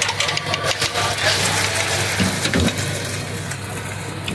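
Beaten egg poured onto a hot flat-top griddle, sizzling, with a hiss that swells about a second in. Under it runs a steady low engine hum, with a few sharp metal ticks early on.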